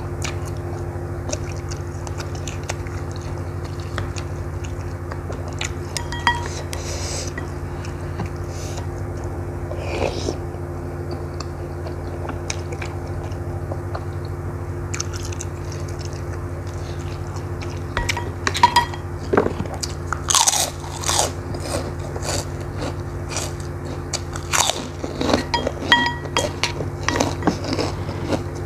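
Close-up chewing and biting of noodles and meatballs. Utensils clink against the ceramic bowl, sharp clicks that come thick in the second half, some with a short ring. A steady low hum runs underneath.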